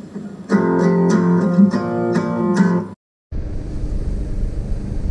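Guitar music with plucked notes that cuts off abruptly about three seconds in; after a brief silence a steady low rumble takes over.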